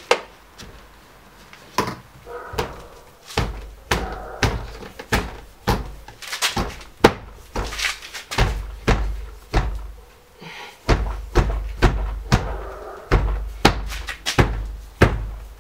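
Hands pressing and knocking a new outer window trim strip into place along the top edge of a BMW E39 front door: a long, irregular series of sharp thumps on the door, about one or two a second, many with a deep rumble from the door panel.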